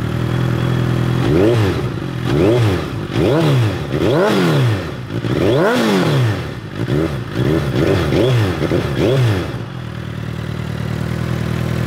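2022 Suzuki Hayabusa's inline-four engine through a full Akrapovic exhaust, idling, then revved with about ten quick throttle blips, the biggest about halfway through. It settles back to a steady idle near the end.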